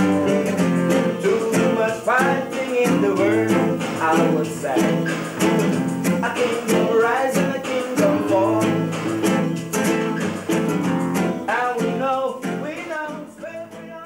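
A man singing over his own strummed acoustic guitar in a steady rhythm; the song fades away near the end.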